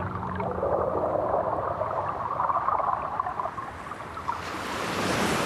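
Seawater moving over sand and pebbles, heard through hydrophones: a muffled, churning rush and gurgle. About four seconds in, a broad surf hiss swells up as a wave breaks.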